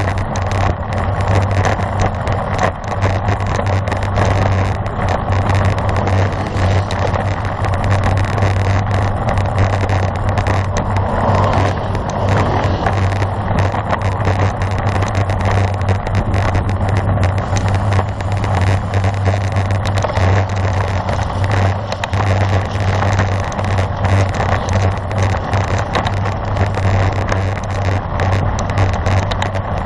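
Steady rushing wind on the microphone, with a constant low rumble, heard while riding a road bicycle at speed.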